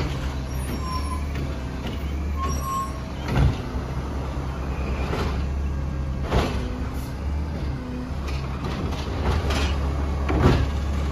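Peterbilt 320 automated side-loader garbage truck running at the curb on its natural-gas engine, a steady low hum, while its arm works a cart. Three sharp bangs, about 3.5, 6.5 and 10.5 seconds in, come from the cart being dumped into the hopper and set back down.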